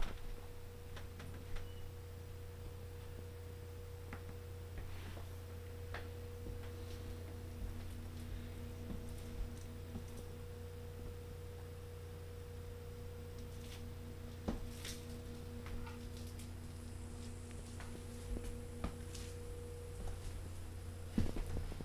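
A steady low hum with a faint steady tone over it that stops near the end, and scattered light clicks and knocks.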